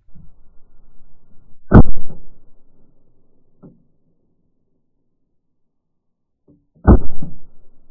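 Two very loud shotgun shots about five seconds apart, each a sharp blast that trails off over half a second.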